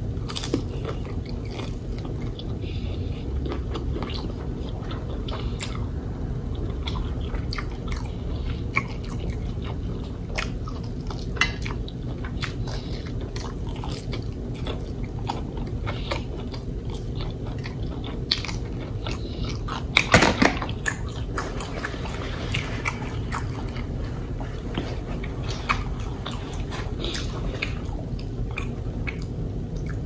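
Close-miked biting and chewing of a fried chicken wing, with many scattered sharp clicks and crackles and a louder cluster of them about twenty seconds in.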